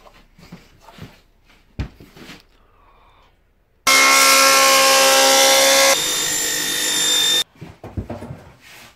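Wooden boards knocked and shuffled as they are handled. About four seconds in, a woodworking power machine cutting wood starts loud and steady with a whine. It drops a step in level a couple of seconds later and stops suddenly, and more knocks of boards being handled follow.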